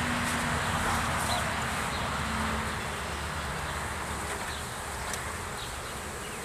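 Honeybees from a freshly opened package buzzing around the box in a steady hum that eases off slightly, with faint bird chirps behind it.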